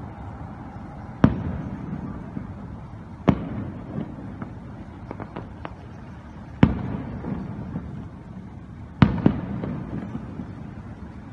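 Fireworks bursting: four loud booms a few seconds apart, each followed by a fading low rumble, with a cluster of smaller crackling pops between the second and third.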